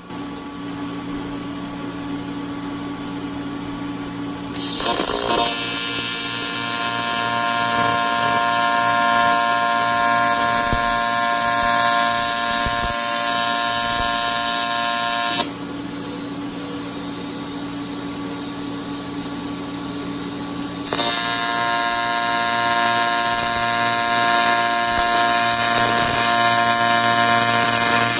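AC TIG welding arc on aluminum from an HTP Invertig 221 set to 120 Hz AC frequency: a loud, steady, high-pitched buzz. It sounds twice, a bead of about ten seconds starting some four seconds in and another in the last seven seconds, with a lower steady hum in the gaps.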